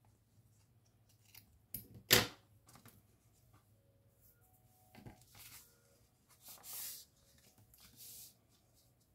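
Paper and stationery being handled: a sharp click about two seconds in, then several short rustling swishes of paper.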